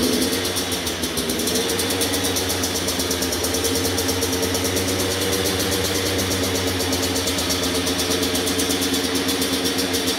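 Kawasaki KX112 two-stroke single-cylinder dirt bike engine idling steadily on its stock exhaust, with a fast, even beat.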